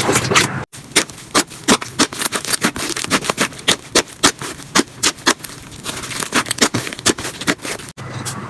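Slime being worked, making a fast, irregular run of small crackles and pops, with abrupt cuts about a second in and near the end.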